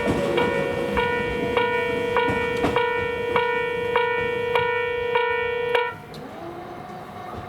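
Japanese electronic level-crossing alarm ringing its repeating bell strokes, about 1.7 a second over a steady tone. It stops suddenly about six seconds in, as the crossing's warning ends.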